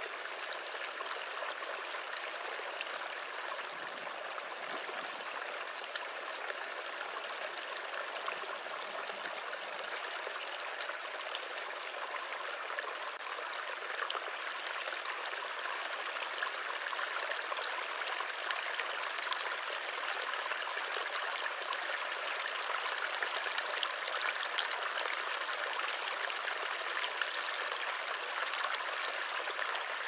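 Mountain stream running over rocks: a steady rush of water with fine splashing, a little louder in the second half.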